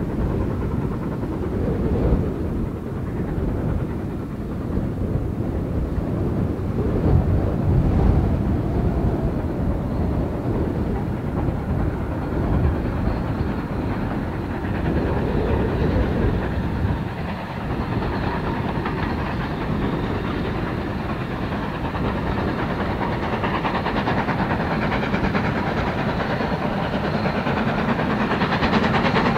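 Two steam locomotives double-heading a passenger train as it approaches, the exhausts and the running on the rails growing louder over the last several seconds.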